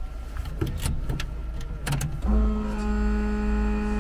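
A few switch clicks in a Robinson R44 Raven II helicopter cockpit, then about two seconds in a steady electrical hum starts and holds as the helicopter's electrics are powered up before engine start.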